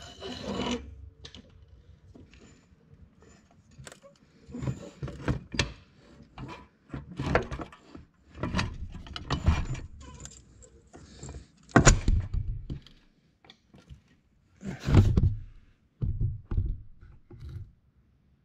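Irregular metal clanks, rattles and thunks of a floor jack and jack stand being handled and set under a car as it is raised, with the loudest sharp clank about twelve seconds in.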